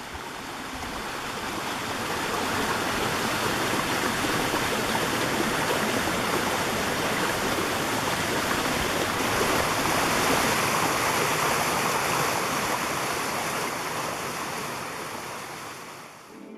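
Shallow stream flowing over rock ledges and a small cascade, a steady rush of water that fades out near the end.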